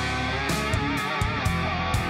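Rock music track: an electric guitar lead with bending notes over drums.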